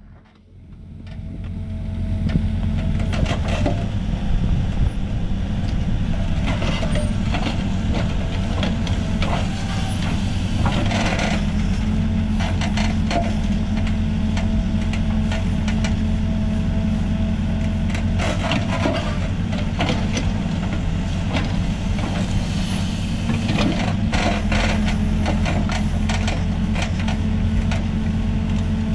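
Hidromek 102B backhoe loader's diesel engine running steadily under load while the backhoe digs a trench. Irregular scrapes and knocks of the bucket in the soil come now and then. The sound fades in over the first two seconds.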